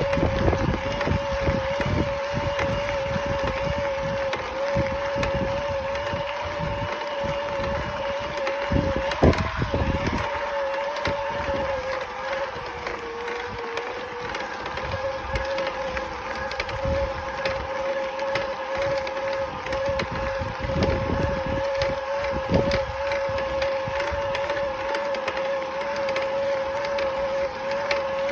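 Electric mountain bike being ridden: its mid-drive motor whines steadily under pedalling, with wind buffeting the microphone and a few sharp creaks or knocks, the creak a rider hears when pedalling hard uphill.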